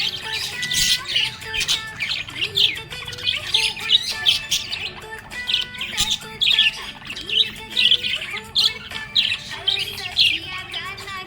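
Budgerigars chirping and warbling: a busy run of short, sharp chirps and squawks, several a second, with brief pauses between flurries.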